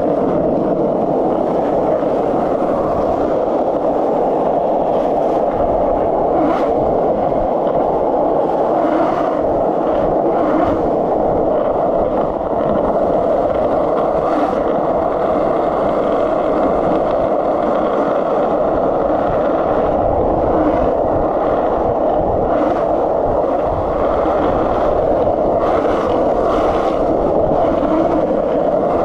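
Skateboard wheels rolling fast over street asphalt and paving: a steady rolling noise with occasional sharp clicks.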